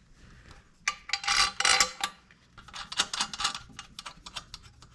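Metal parts and tools being handled, clicking and clinking. A denser scraping clatter comes about a second in, followed by a run of quick separate clicks.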